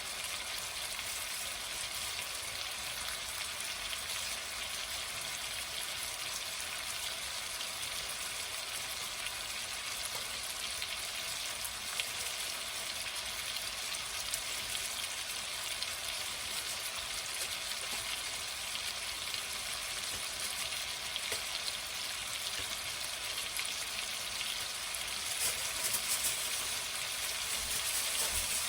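Food sizzling steadily in a hot pan, a continuous crackling hiss that gets a little louder and busier near the end.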